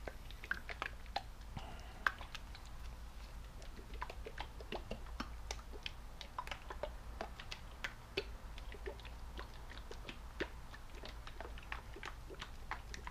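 Bottle of Anycubic grey 3D-printer resin being shaken by a gloved hand before filling the printer's vat: a stream of faint, irregular clicks and rustles from the liquid-filled plastic bottle.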